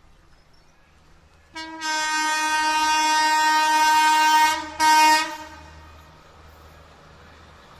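WAP4 electric locomotive's horn sounding a long blast of about three seconds, then a short second blast: the 'pom pom' honk.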